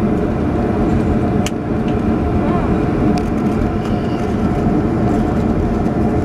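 Steady cabin rumble inside a Boeing 737-400 rolling on the ground after landing: the CFM56 engines and the wheels on the tarmac make a dense, even low roar, with a couple of faint clicks.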